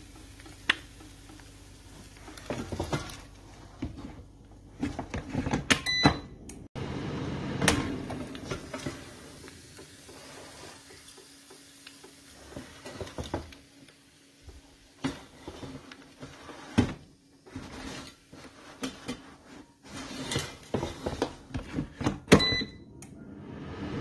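Clicks and knocks from handling a Zilan air fryer and its basket, with a low hum at times. The control panel gives a short electronic beep about six seconds in and another near the end.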